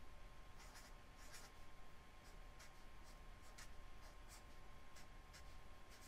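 Felt-tip marker writing on spiral-notebook paper: a faint run of short scratchy strokes, a couple a second, as an equation is written out. A faint steady high tone hums underneath.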